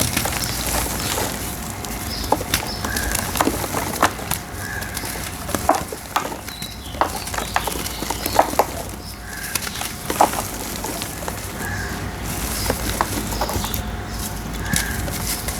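Dry red brick dirt shapes crumbling, with an irregular run of sharp crackles and snaps.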